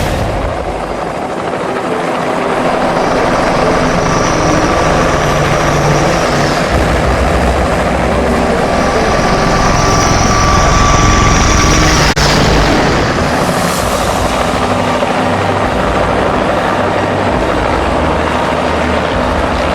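Helicopter running steadily: a dense rotor and engine rush with a low rumble. A thin high whine comes in twice and fades. There is a brief dropout about twelve seconds in.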